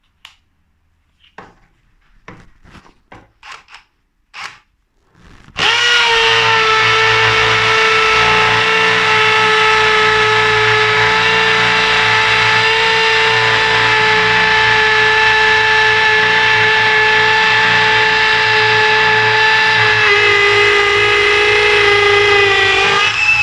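Bosch GSB 18V-150 C brushless cordless drill in hammer (impact) mode, drilling into a concrete block with a multi-purpose bit. It starts about five seconds in after a few light clicks, then runs loud and steady with a motor whine. The pitch drops under heavier load near the end, then rises again.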